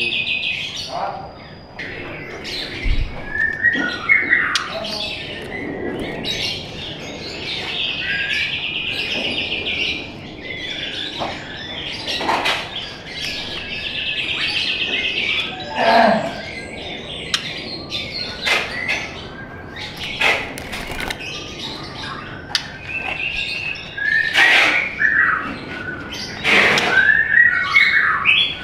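White-rumped shama singing: three long rapid rattling trills of about two seconds each, the fast staccato 'trotol' bursts prized by songbird keepers, broken up by sharp chips and short whistled glides. The song gets busier with quick sliding notes near the end.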